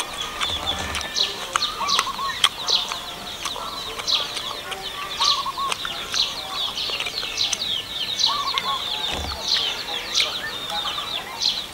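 Birds chirping and trilling in a continuous, busy chorus, with a few short clucking calls from chickens and scattered light clicks.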